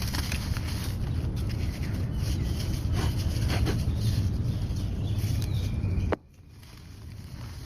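A crust of dry sand and mud crumbling, a dense crackle with scattered sharp cracks over a low rumble. About six seconds in the sound drops away suddenly to a much quieter stretch.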